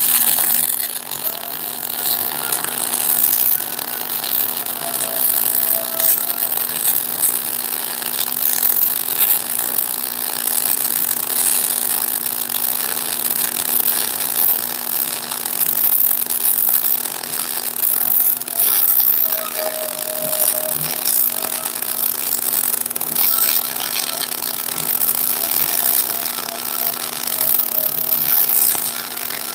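MIG welder arc crackling and sputtering steadily as a bead is laid on a truck's Eaton rear axle housing, fixing a steel reinforcement plate to it. A steady low hum runs underneath.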